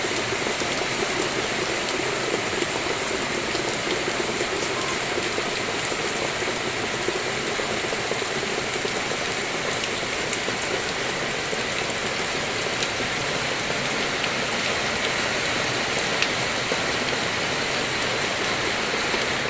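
Rain falling steadily: a continuous even hiss, with now and then a single sharper drop tick.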